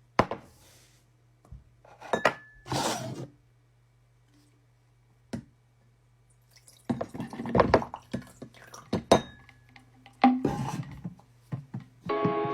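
Scattered handling noises: sharp clicks and light clinks, a couple with a brief ring, between short bursts of rustling.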